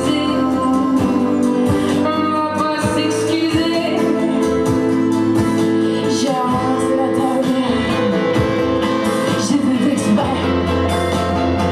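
A woman singing a song live, accompanied by a strummed acoustic guitar.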